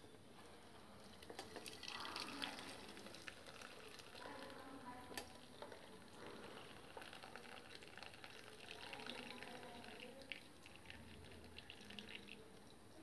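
Mutton-bone soup being poured through a steel mesh strainer: faint steady pouring and splashing of liquid, with a few light clicks.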